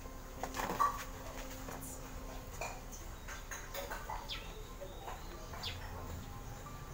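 Small birds chirping in short, scattered calls, with one louder squeak about a second in.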